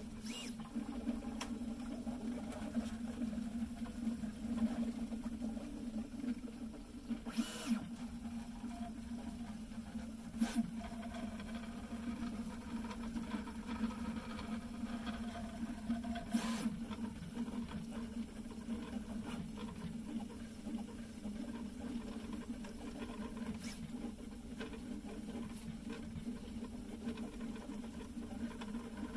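An Original Prusa 3D printer running mid-print, its stepper motors whirring steadily as the print head moves around the rim of the print. A few short ticks stand out now and then.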